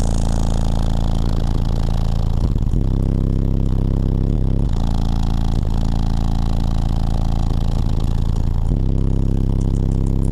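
Very loud bass music from a truck's competition car-audio system, heard from inside the cab: long deep bass notes that shift in pitch every couple of seconds.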